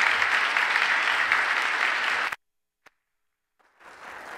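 Audience applauding steadily. The applause cuts off abruptly about two seconds in, leaving a second or so of dead silence, and fainter noise returns near the end.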